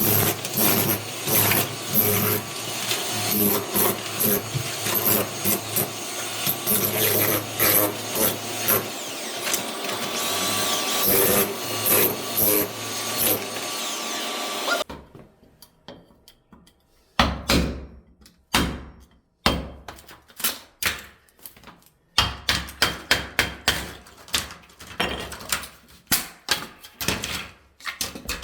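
Tool work on wooden floorboards during demolition of a damaged floor. For about the first half, continuous scraping or cutting noise is peppered with knocks. It stops abruptly, and a string of separate sharp knocks follows, like hammer blows, coming quickly near the end.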